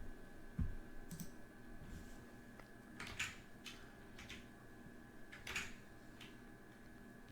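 Scattered computer keyboard keystrokes and clicks, faint and irregular, with a couple of dull low thumps near the start, over a faint steady high whine.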